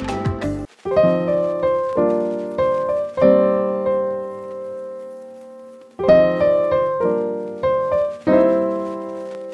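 Background music: a piano playing chords and short phrases, with one chord left to ring and fade for a few seconds in the middle.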